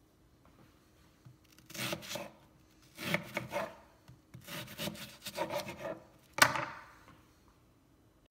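A kitchen knife cutting through half a red onion on a wooden cutting board: three stretches of rasping, sawing strokes, then one sharp knock of the blade on the board about six seconds in.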